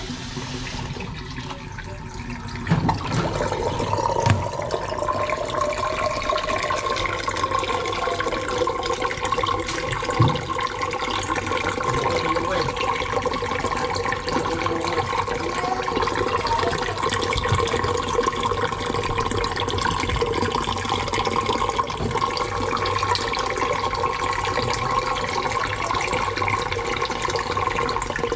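Water rushing steadily down a stainless-steel kitchen sink drain, starting about three seconds in, as the blocked drain clears and the full basin empties.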